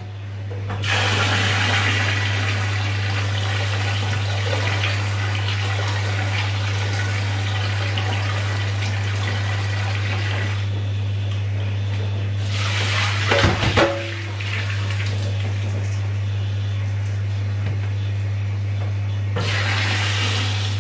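Kitchen tap running into a plastic bowl of soaked rice, a steady rush of water as the rice is rinsed, with a brief clatter about 13 seconds in. Near the end the water is tipped out of the bowl into a metal sieve in the sink. A steady low hum runs underneath.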